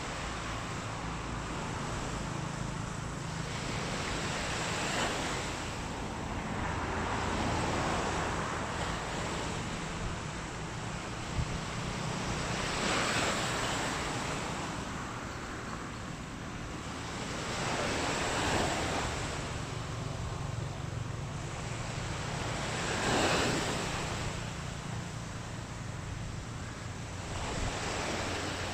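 Sea waves washing onto a beach, the surf swelling and falling every four or five seconds over a steady low rumble.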